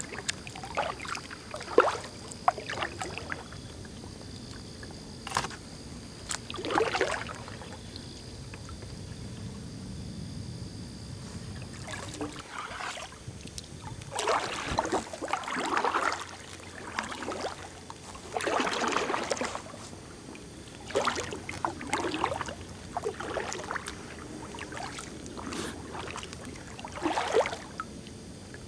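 Kayak paddle strokes in the water, splashing and dripping at irregular intervals, each swish lasting about a second.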